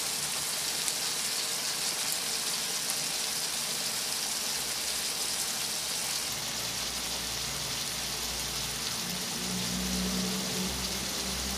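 Pinakbet vegetables simmering in liquid in a frying pan, a steady bubbling hiss. After about six seconds a low rumble joins in.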